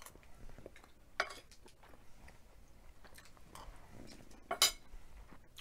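Metal spoon clinking while eating: a sharp click about a second in and a louder double click near the end.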